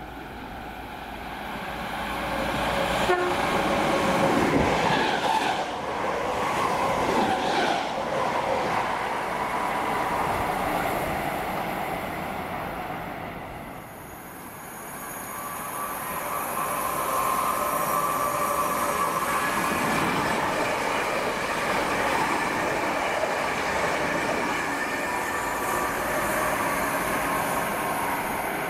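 Electric multiple-unit trains running through a station on the West Coast Main Line. A Class 319 passes first, loud for most of the first half. Its sound fades about halfway through, then a Class 350 builds up with a steady tone over its running noise.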